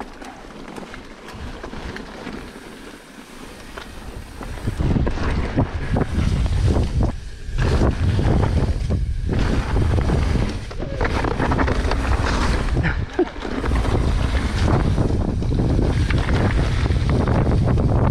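Wind buffeting a mountain-bike camera's microphone while riding a trail, mixed with tyres crunching and the bike rattling over rough ground. Quieter with a few knocks at first, then loud and constant from about four to five seconds in as speed builds.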